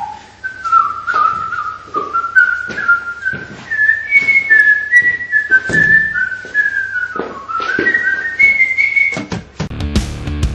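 A person whistling a wandering tune, with irregular sharp taps alongside. Near the end a rock band comes in with drums.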